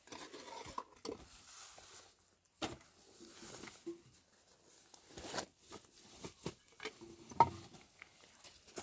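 Scattered light knocks, clicks and rustling from objects being handled, with a sharper knock about seven and a half seconds in.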